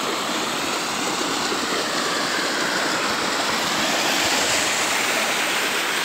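Steady rushing of muddy floodwater pouring over the rocks of a small cascade and along a shallow creek bed. The flow is overflow from a dam that has spilled.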